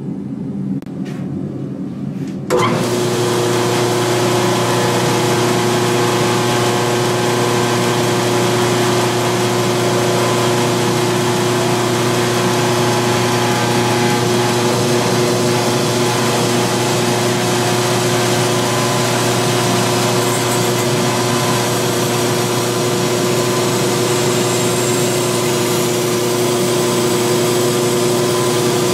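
Belt grinder running with a steel adze held against a 60-grit belt on an 8-inch contact wheel, hollow-grinding the primary bevel. The loud, steady hum and grinding hiss set in abruptly about two and a half seconds in, after a quieter start with a few clicks.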